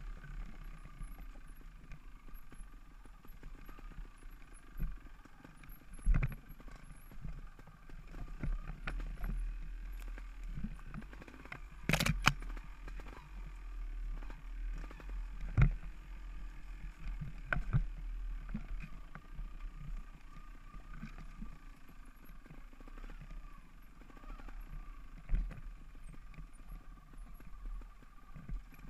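Dirt bike engine running at low revs, its pitch rising and falling with the throttle, with several sharp knocks as the bike goes over rocks. The loudest knock comes about twelve seconds in.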